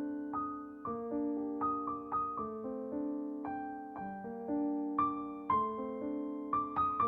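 Background piano music: soft notes and chords struck at an unhurried pace, each ringing out and fading.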